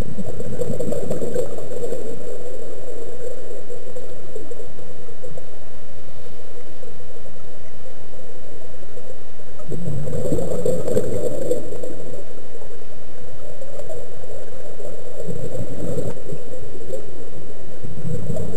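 Scuba regulator exhaust bubbles, recorded underwater: four gurgling bursts of a second or two each, one just after the start, one about ten seconds in, one about fifteen seconds in and one at the very end, over a steady background hiss.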